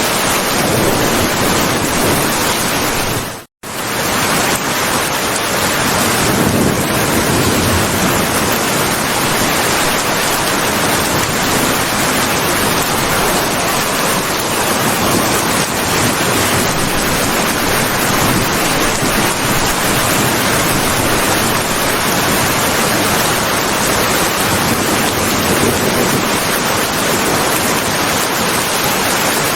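Steady rain, a dense even hiss, cutting out for a split second about three and a half seconds in.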